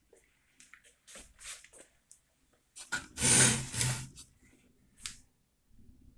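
Hands handling the metal chassis of an old power amplifier: a run of short rustles and clicks, with one longer, louder rustling noise about three seconds in that lasts about a second.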